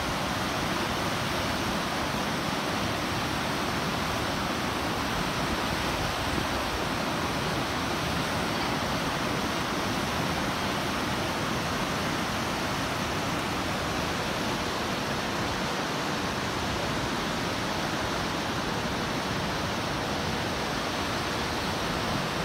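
Water pouring over the stepped weirs of a concrete fish ladder: a steady, unbroken rush of white water.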